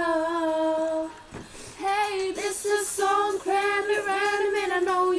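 Young women singing unaccompanied: a long held 'whoa' note that ends about a second in, then after a short pause a run of short sung syllables at an even pitch.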